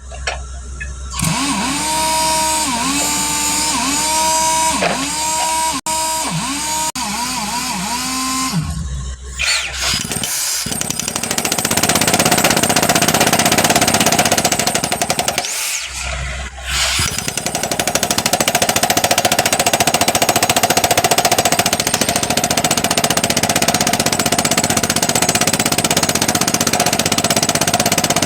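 A loud pitched tone whose notes dip and restart over and over for several seconds, then a motor running steadily, with brief drops in level about 16 s in.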